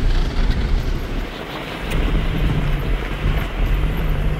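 A motor vehicle running: a steady low engine hum over a heavy rumble and a wash of road or wind noise, dipping a little about a second in.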